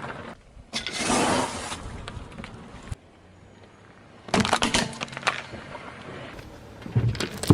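Crunchy objects cracking and breaking under a car tyre, in two bursts of dense crackling: one about a second in and one about four and a half seconds in.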